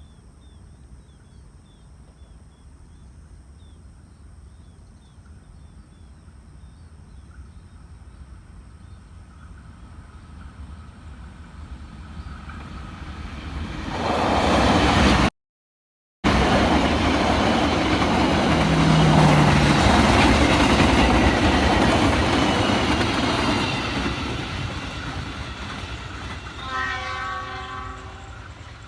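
A train approaching and passing close by: a rumble that builds to a loud rush of wheels and carriages, then fades. Near the end a short, multi-toned horn sounds. The sound cuts out for about a second at the loudest point.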